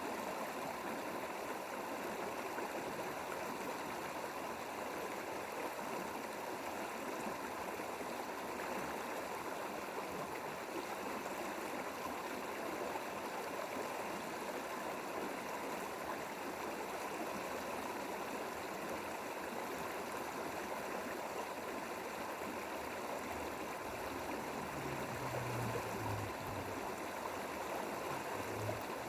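Mountain valley stream flowing steadily, an even rush of running water.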